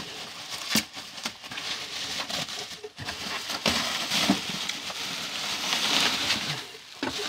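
Bubble wrap crinkling and rustling as hands pull and grip it inside a cardboard box, a steady crackle with scattered sharp clicks.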